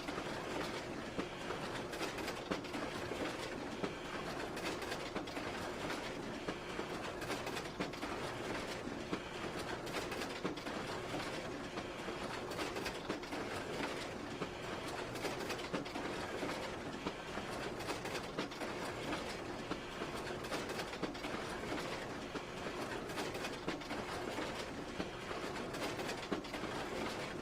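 Photocopier running continuously: a steady mechanical whir with a faint hum and frequent small clicks.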